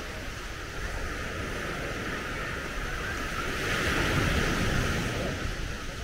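Sea surf washing onto the beach, swelling about four seconds in, with wind rumbling on the microphone.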